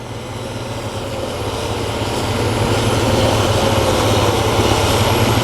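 Case IH Axial-Flow combine harvester running at work, its diesel engine and threshing machinery a steady low hum that grows gradually louder as it draws closer.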